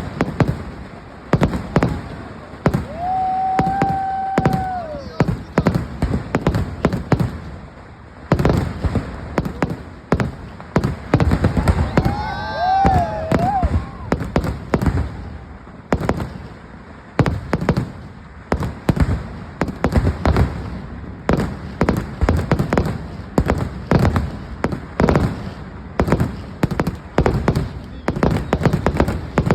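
A fireworks barrage: many loud bangs from firecrackers and shells going off in quick, irregular succession. A long, steady whistle is heard about three seconds in, and a wavering whistle or call around twelve seconds in.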